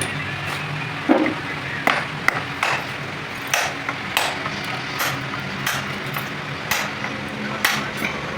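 Hammer blows on metal at an irregular pace, roughly one or two strikes a second, each a sharp ringing knock.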